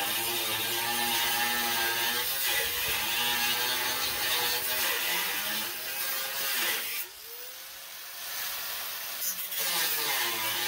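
Corded electric angle grinder with a cut-off wheel cutting through a steel bracket on a mower deck. The motor note wavers as the wheel bites into the metal. About seven seconds in, the cutting noise drops and the motor note rises as the wheel eases off the cut, then it bites back in near the end.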